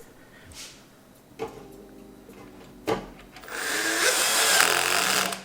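Two clicks, then a harsh rasping whir of about two seconds as the graphics card is fastened to the mining rig frame.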